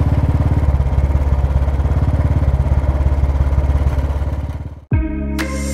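Motorcycle engine running steadily while riding, with an even low pulse and road and wind noise. It fades out about four and a half seconds in, and music starts just before the end.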